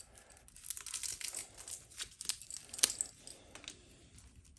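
Old electrical tape being cut and pulled off a taped-up motorcycle wiring harness: crinkling and tearing with scattered small clicks, and one sharper click a little before three seconds in.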